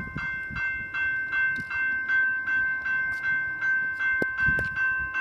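Railroad crossing bell ringing steadily, about three dings a second, at a crossing that is malfunctioning. Two sharp knocks come a little after four seconds in.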